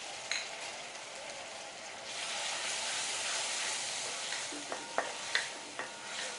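Ginger garlic paste and fried onions sizzling in hot oil as they are stir-fried, the sizzle growing louder about two seconds in. In the second half a spoon knocks and clinks against the pan several times.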